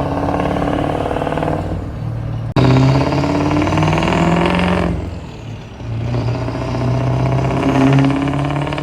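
Ford 6.0 Powerstroke turbo-diesel V8 truck accelerating, engine pitch rising, easing off for about a second around five seconds in, then pulling and rising again. The exhaust has a newly fitted, non-standard elbow.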